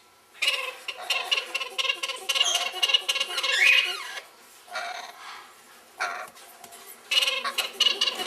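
Baby African grey parrots squawking in rapid, chattering runs: a long stretch, a lull with a couple of short calls around the middle, then more squawking near the end.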